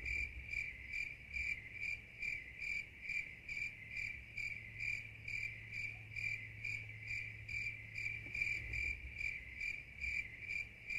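Cricket chirping: one high, even chirp repeated steadily, about three times a second.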